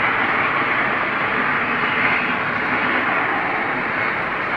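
Steady, even noisy drone with no clear pitch: the unexplained 'strange sound' that seems to come from just overhead and that listeners find eerie.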